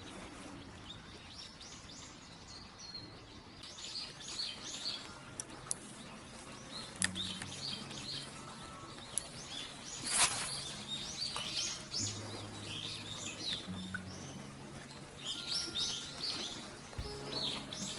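Small songbirds chirping and twittering in many short, repeated calls. A single short, sharp noise about ten seconds in.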